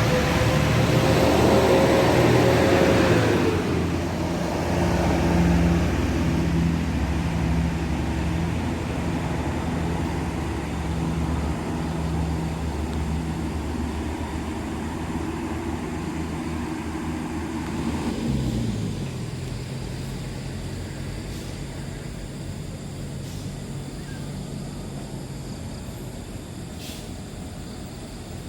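Tour buses driving past on the road. A loud whine at the start drops away about three and a half seconds in as one goes by, then a steady engine note slowly fades.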